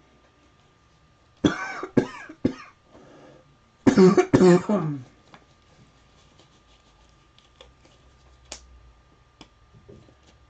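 A person coughing: three short coughs, then a louder pair of coughs about a second later, followed by faint scattered clicks.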